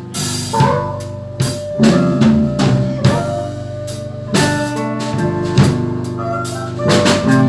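Blues band playing live, an instrumental passage between sung lines: drum kit with bass drum and snare hits at a steady beat under held bass and other instrument notes.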